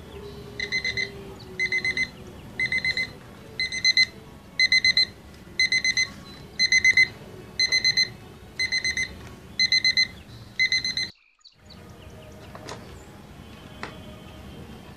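Quartz alarm clock's beeper sounding in groups of four quick beeps, about one group a second, set off by the two wires from the clock being joined. It cuts off suddenly about eleven seconds in.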